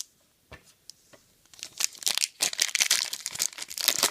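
Trading-card pack wrapper crinkling and tearing as it is opened, with dense crackling starting about one and a half seconds in after a single light tap.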